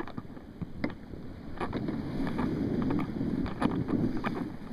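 Sea water sloshing and rushing along a Feelfree Moken 10 kayak close to the microphone, with many sharp drips and splashes. The rushing wash grows louder about two seconds in.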